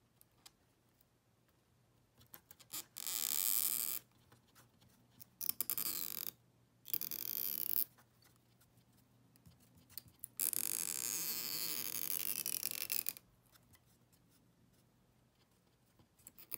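A thin metal pry tool scraping at the edge of an iPod Touch battery in its aluminium case: a few small clicks, then four spells of harsh scraping, the longest nearly three seconds.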